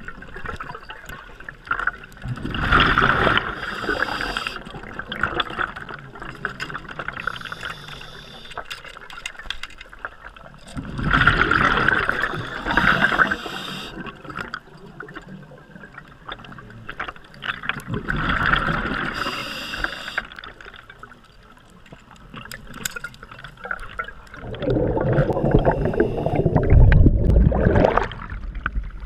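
Scuba diver breathing through a regulator underwater: three bursts of exhaled bubbles about seven seconds apart, with quieter water noise between them. Near the end comes a longer, louder stretch of water sound as the camera breaks the surface.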